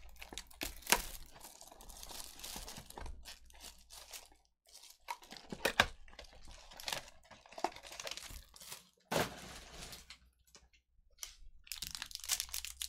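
Cardboard card box being torn open and its plastic wrap crinkled by hand, in irregular crackles and tears, with a short pause near the end.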